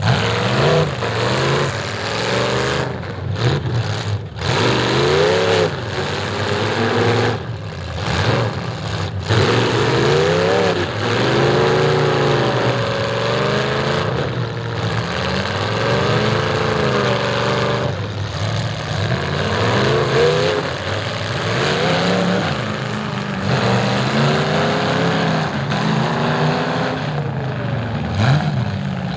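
Demolition derby car engines revving hard and easing off over and over, the pitch rising and falling every second or two, with more than one engine running at once.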